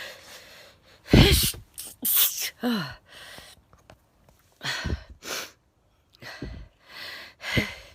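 A woman sneezing several times in a bout, short loud sneezes with sharp in-breaths between them and the odd voiced tail at the end of a sneeze.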